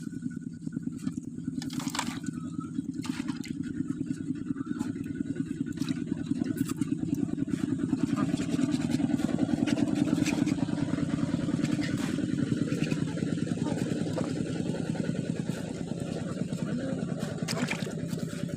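An engine running with a steady low hum, growing louder toward the middle and easing off again toward the end.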